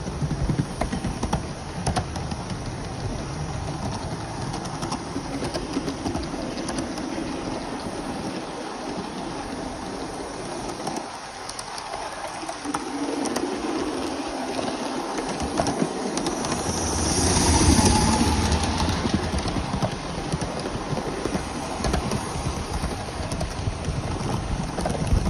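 Live-steam gauge 1 Aster 9F locomotive running with its train: a steady hiss and crackle with scattered small clicks, swelling louder for a few seconds after the middle.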